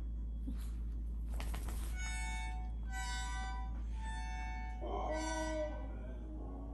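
Recorded dog howls played back: several drawn-out, high-pitched howling voices sounding together at different pitches. A short rustle comes about a second and a half in.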